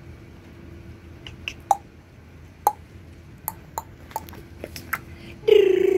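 A scatter of short sharp clicks, each with a brief falling chirp, then about five and a half seconds in a loud drawn-out voice-like call that falls in pitch, over a faint steady hum.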